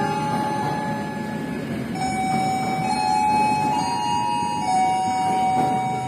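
Passenger train rolling out of the station: a low rumble of the wheels on the rails, with a steady high-pitched wheel squeal that holds one note and then jumps to another every second or two as the cars go over the curves and points.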